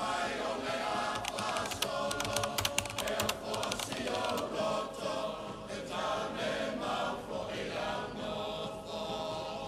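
Computer keyboard typing sound effect: a quick run of key clicks starting about a second in and lasting about three seconds, over background choral singing.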